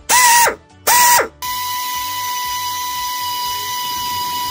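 Power drill turning an end mill through a broken exhaust manifold stud in a 5.7 HEMI cylinder head. Two short trigger bursts that spin up and wind down, then a steady run at one speed from about a second and a half in.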